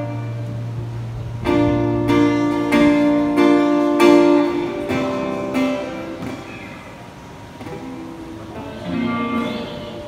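Live band music led by strummed guitar chords: a run of hard strums in the first half, then the chords ring and die away.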